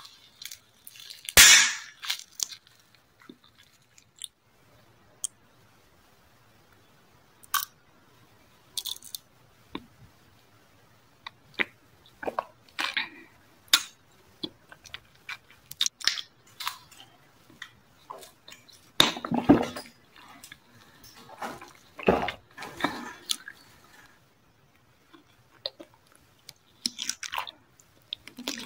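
Close-miked eating sounds: separate bites and bouts of chewing on a series of novelty foods, including a glossy red jelly, with wet, squishy and crunchy mouth sounds. Quiet gaps fall between them, and the loudest bites come about a second in and again twice past the middle.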